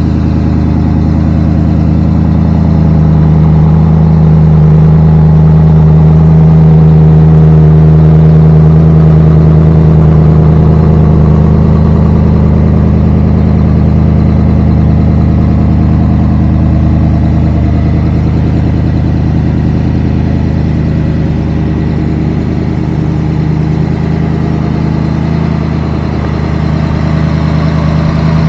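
Ford 289 V8 with a Comp Cams 270S solid-lifter cam idling steadily through Porter glasspack mufflers.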